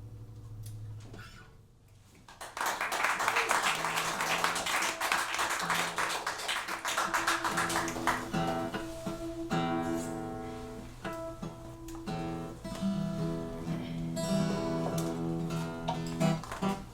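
Acoustic guitar playing: a fast, dense strummed passage starts about two seconds in, then gives way to separately picked notes and chords.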